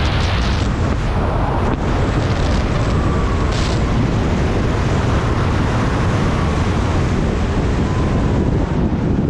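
Loud, steady rush of wind over a head-mounted camera's microphone as a skydiver descends under an open parachute on final approach to landing.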